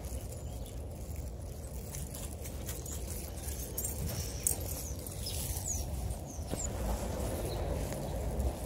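Outdoor walking ambience: a steady low rumble with light pattering and clicking, and a few faint short high chirps about two thirds of the way through.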